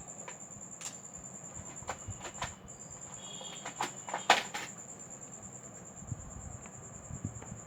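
Scattered sharp clicks and taps of hard parts and tools being handled during a smartphone display replacement, the loudest about four seconds in, over a steady high-pitched whine.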